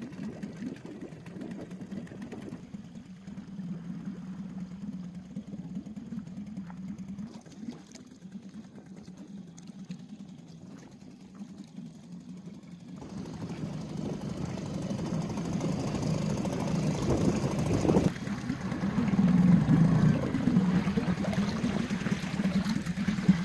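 Boat engine running steadily, a low hum that grows louder in the second half.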